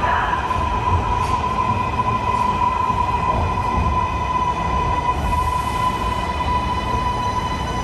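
MARTA rapid-transit train moving along the platform: a low rumble with a steady high-pitched whine.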